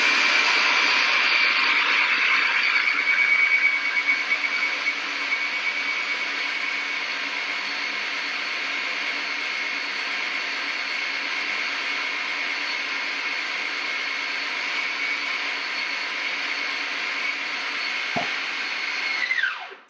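Food processor motor running steadily, its blade puréeing raw salmon, egg whites and cream into a mousse, with a high whine over the churning. It is a little louder for the first few seconds, then even, and near the end it winds down with a falling whine and stops.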